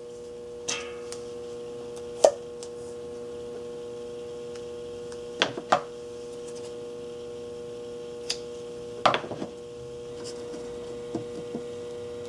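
Electrical tape being pulled off the roll and pressed down by hand: a handful of short, sharp crackles and clicks, spaced irregularly, over a steady low hum.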